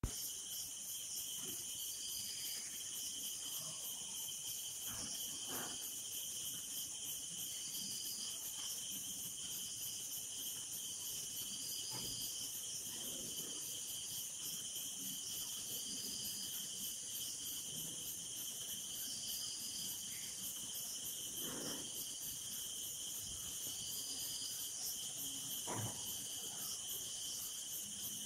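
Night insects trilling steadily in several high-pitched layers, one of them pulsing rapidly, with a separate chirp repeating every two to three seconds. A few faint knocks stand out now and then.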